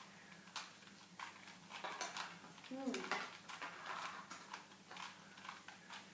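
Plastic Rubik's cube being turned quickly by hand: sharp clicks of the layers snapping round, coming unevenly, sometimes two in quick succession.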